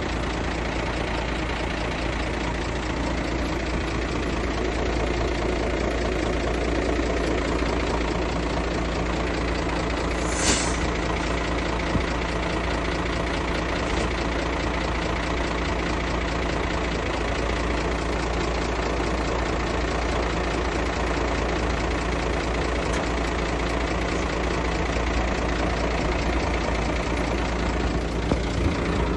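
Komatsu D58P bulldozer's diesel engine running steadily under work, with a short high squeal about ten seconds in.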